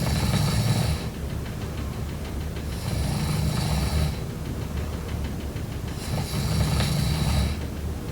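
A person snoring in deep sleep: three snores about three seconds apart, each a low rumble with a raspy hiss, with quieter breathing in between.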